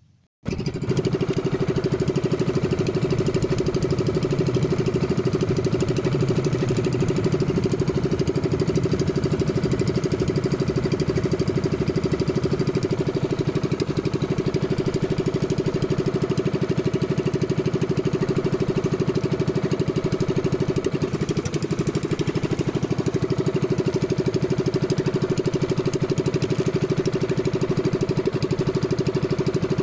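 Small fishing boat's engine running steadily at an even speed while the boat trolls a lure, a constant fast-pulsing drone that comes in abruptly just after the start.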